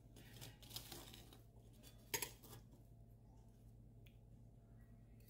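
Table knife and fork cutting through a freshly fried, crumb-coated croquette on a china plate: faint crunchy scraping, with one sharp tap about two seconds in.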